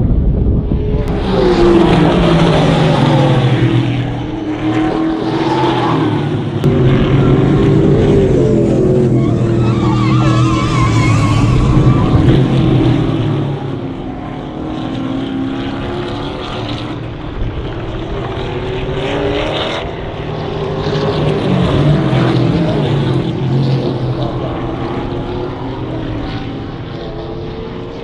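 Several V8 Trans Am race cars going past on the circuit, engine notes sliding down and then climbing again as the drivers lift, shift and accelerate, one car after another. Loudest in the first half, easing off after about halfway.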